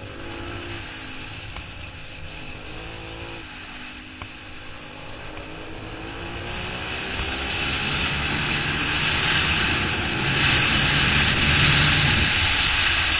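Onboard sound of a 2008 Suzuki SV650's V-twin engine accelerating hard, its pitch dropping at a gear change about three and a half seconds in and then climbing again. A rush of wind noise grows steadily louder as speed builds.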